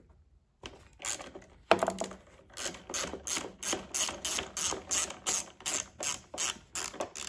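Socket ratchet clicking in a steady run, about three clicks a second, as it backs out long carburettor mounting bolts. A single sharper click comes shortly before the run starts.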